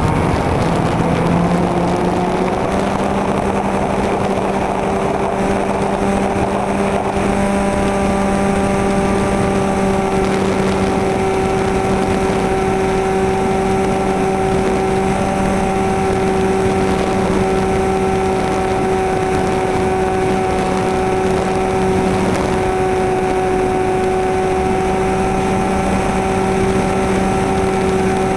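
Carson Cessna 182 RC model plane's motor and propeller, heard from a camera mounted on the plane, spinning up over the first couple of seconds and then holding a steady whine at constant throttle in flight, with a haze of airflow noise.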